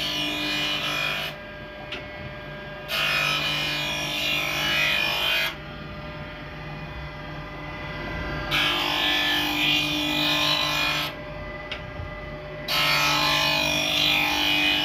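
Straight knife grinder sharpening planer blades on automatic traverse: the grinding wheel rasps along the steel blades in repeated passes of about two and a half seconds, with a steady motor hum in the gaps between passes.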